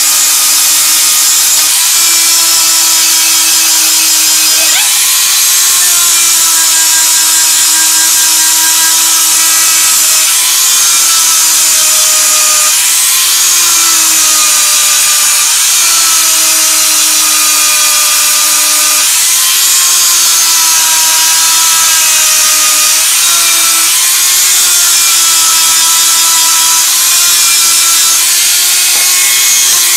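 Angle grinder running continuously as its abrasive disc grinds a steel butcher-knife blade: a steady whine over a loud grinding hiss. The whine's pitch sags and recovers every few seconds as the disc is pressed onto the blade and eased off.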